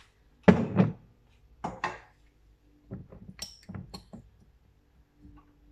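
Kitchen handling noises of a glass bottle, pan and wooden spoon: a loud double knock about half a second in, two more knocks near two seconds, then a run of light clinks and taps.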